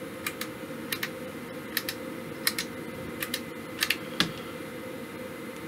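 A power switch clicked off and on repeatedly, sharp double clicks about every three quarters of a second with a last, louder single click about four seconds in, power-cycling the repaired tape emulator to check that its front-panel lights no longer flicker. A faint steady hum runs underneath.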